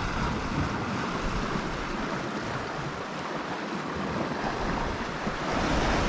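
Calm sea washing gently against the rocks, a steady hiss of water that swells and eases, with some low wind rumble on the microphone.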